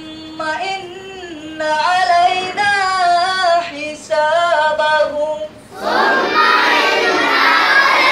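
One child's voice chanting Qur'an recitation in a melodic, ornamented line, with pauses between phrases; about six seconds in, a large group of children's voices joins in, chanting together in unison.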